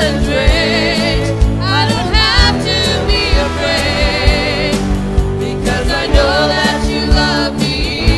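Church praise band playing a contemporary worship song: singers with a wavering, vibrato-rich melody over sustained keyboard and bass chords and a steady drum beat.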